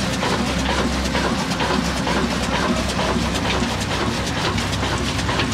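Old 35 HP stationary horizontal diesel engine of the Ruston Hornsby type, with a heavy flywheel, running steadily: a low drone with a constant clatter of quick ticks from the engine's moving parts.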